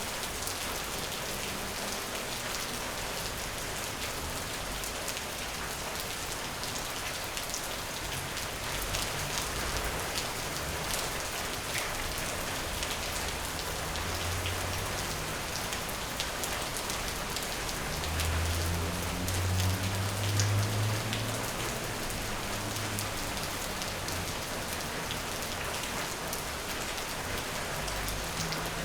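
Steady rain falling on a surface, an even hiss with many fine drop ticks. A low rumble swells briefly about two-thirds of the way through.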